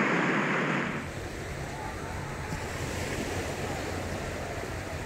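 Small waves washing up a sandy beach, a steady hiss of surf, with wind on the microphone. About a second in the sound drops to a quieter, lower rush.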